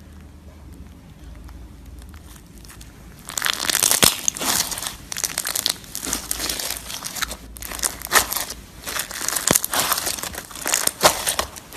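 Slime being handled: faint for about three seconds, then a dense run of crackles and crunches.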